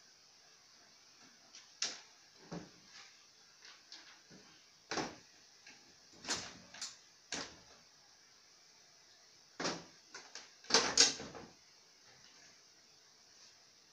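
Irregular plastic knocks and clunks as the rear plastic cabinet of a CRT television is worked loose and pulled off, with the loudest cluster of knocks about eleven seconds in.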